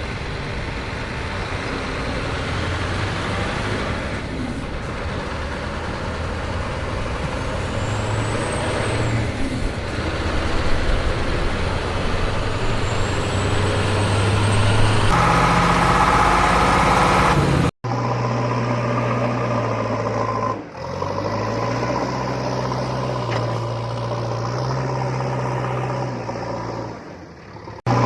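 Steady engine-like drone of toy construction vehicles running, a low hum with a noisy wash over it. The sound changes abruptly about halfway through and again near the end, where the footage cuts.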